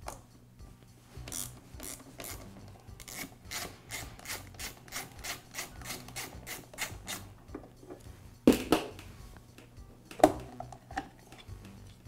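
Screwdriver backing out the screws of a sheet-metal motor wiring-box cover, a quick rhythmic scraping of about three strokes a second, then two sharp knocks as the metal cover comes loose.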